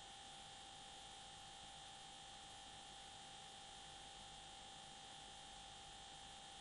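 Near silence: a steady hiss with a faint, constant hum, the noise floor of the recording.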